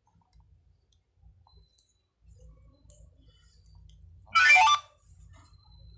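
Interactive study book's talking pen: faint clicks and taps, then a short electronic sound from the pen's speaker about four seconds in, lasting about half a second.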